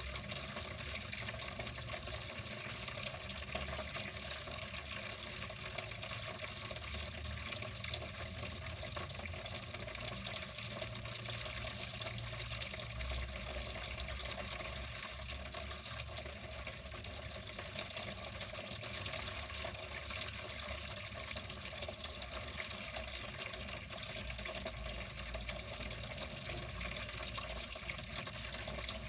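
Water running in a steady, unbroken flow.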